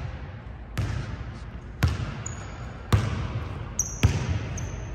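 A basketball dribbled on an indoor court floor, bouncing four times about once a second, each bounce echoing in the gym. A few short high squeaks come between the bounces.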